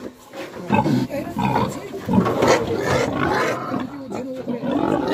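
Pigs squealing and grunting loudly, over and over, as one is bound with rope: the distress cries of a restrained pig.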